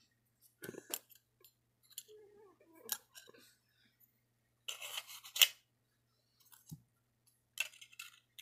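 Small parts of a Bachmann model hopper car being handled and fitted together: scattered light clicks and scrapes, with a louder run of rustling scrapes about five seconds in and a few more clicks near the end.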